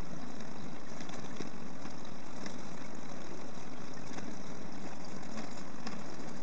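Steady, even rushing noise with a low rumble underneath, unchanging in level.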